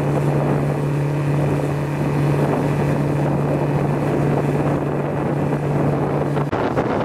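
A small boat's engine running steadily, a low even hum, with wind buffeting the microphone; the engine note drops lower near the end.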